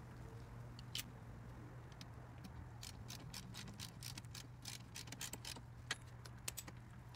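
Light metallic clicks and ticks from a hand tool working on a two-stroke backpack blower's engine, a single click about a second in, then a quick irregular run of them through the second half.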